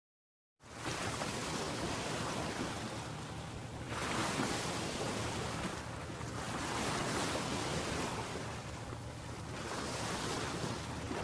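Waves washing onto a shore, rising and falling in slow swells every few seconds, starting abruptly about half a second in.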